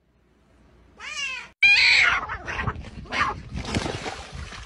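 A cat meows about a second in, then gives a loud, harsh yowl followed by two shorter cries. Water splashing comes in near the end.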